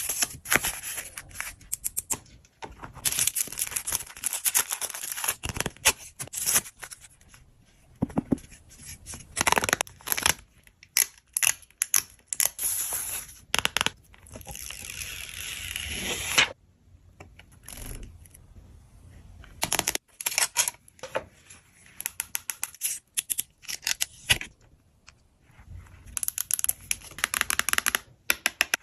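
Packaging being torn open and crinkled by hand during unboxing: irregular rustling and tearing with many sharp clicks, broken by short quieter pauses.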